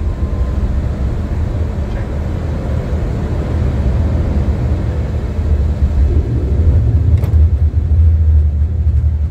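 Steady low rumble of airflow and engines on the flight deck of an Airbus A330-200 climbing out after takeoff, with a faint steady hum above it. A single brief click about seven seconds in.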